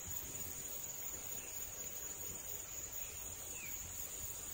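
Steady high-pitched chorus of insects in the fields, with a few faint short chirps over it.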